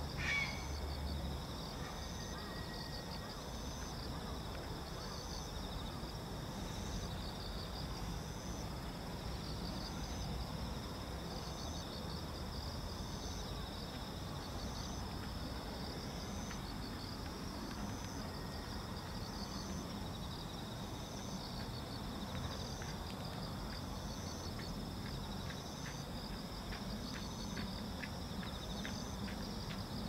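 Insects chirping in a reedbed: a steady high trill with chirps repeating a little over once a second. A single bird call sweeps down in pitch right at the start, and faint ticks come about twice a second near the end.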